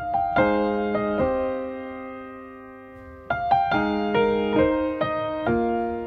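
Background music: solo piano playing slow, gentle notes and chords that ring and fade.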